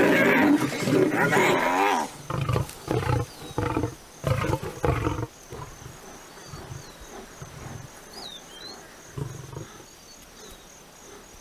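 Lions snarling and roaring in a fight with hyenas: loud, wavering snarls for about two seconds, then a run of short, deep grunting roars until about five seconds in, after which it goes much quieter, with a few faint high chirps.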